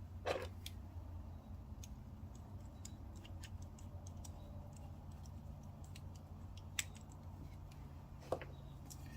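Light, scattered clicks and taps of small metal parts and a small driver being handled while a folding pocket knife is put back together, a few of them louder, over a steady low hum.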